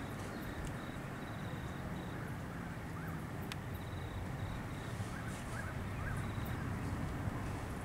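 Steady outdoor background with a low, even rumble, over which a high chirp pulses rapidly in short trills again and again, with a few fainter higher chirps; no thunder is heard.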